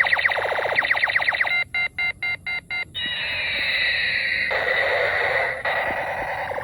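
Electronic beeping and chirping sound effects from a small speaker: a fast run of rapid chirps, then about five beeps at roughly four a second, then a falling zap-like glide into a steady warbling tone.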